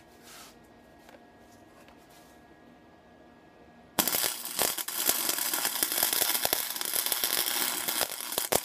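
Electric arc welding on a steel fork brace: the arc strikes suddenly about four seconds in and then crackles and spits steadily, with sharp pops through it.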